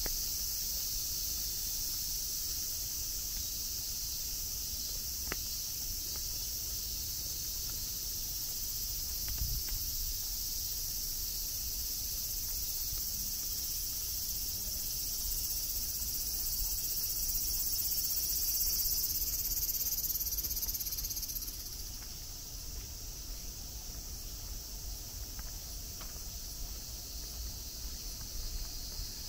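A steady, high-pitched chorus of summer insects, which drops off and grows quieter about twenty-one seconds in, over a faint low rumble.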